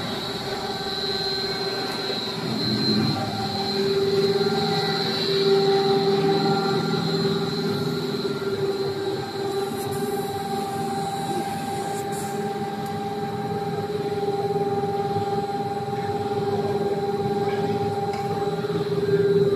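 Twin-screw rubber sheeter running, its electric gear motor and rolls giving a steady mechanical hum with a thin high whine on top.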